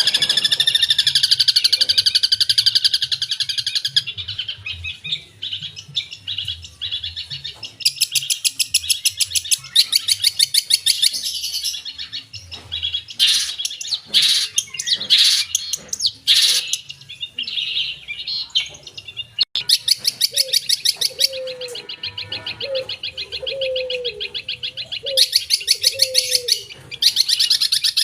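Long-tailed shrike (cendet) singing a loud, varied song: several long bouts of fast rattling trills, sharp single notes between them, and a lower wavering run of notes about twenty seconds in, among the mimicked calls of other birds that this song is packed with.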